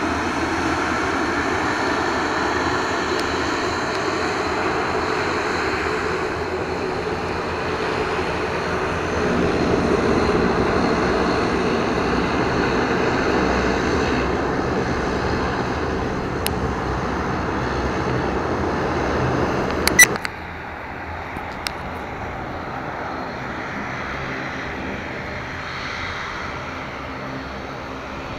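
A Bombardier Dash 8 Q400's twin Pratt & Whitney PW150A turboprop engines at take-off power: a steady drone with faint tones that swells about ten seconds in, then slowly fades as the aircraft rolls away. About twenty seconds in, a sharp click, and the sound drops to a quieter steady drone.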